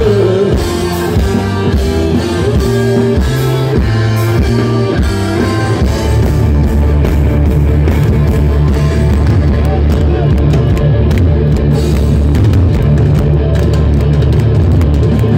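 Live rock band playing electric guitars, bass and drums. The first six seconds or so are a choppy stop-start riff; then the band settles into a steady full-band drive.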